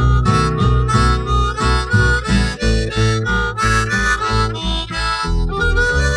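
Instrumental break in a blues-rock song: a harmonica plays the lead over guitar and a steady bass-and-drum beat.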